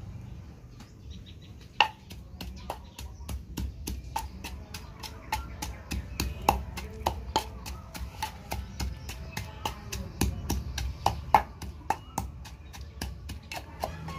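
Wooden pestle pounding shredded green papaya in a mortar: a rhythmic run of knocks, about three to four a second, starting about two seconds in.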